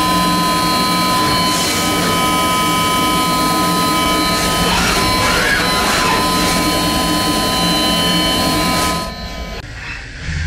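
Mazak HCR-5000 five-axis machining center drilling a metal workpiece with the spindle at 5,700 rpm: a steady, layered machine whine over cutting noise. The sound drops away sharply about nine seconds in.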